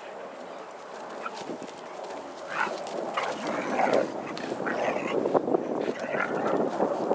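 A Siberian husky and a puppy play-fighting, with dog vocalizations: a string of short calls starting about two and a half seconds in and getting louder toward the end.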